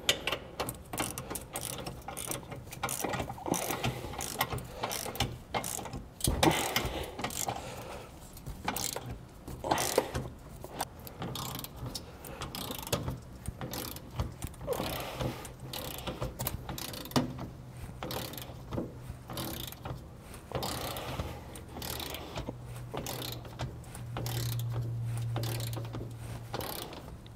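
Hand socket ratchet clicking in uneven runs as a 7/8-inch socket runs down a base-plate mounting bolt, over a low steady hum that grows louder for a couple of seconds near the end.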